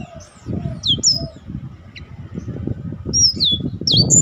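Black-throated canary (blackthroat) singing: sharp, high whistled notes that sweep down in pitch, a pair about a second in and a quick run of three near the end, over low background noise.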